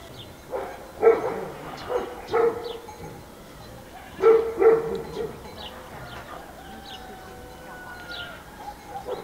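A dog barking about six times, in short groups during the first five seconds, with small birds chirping faintly.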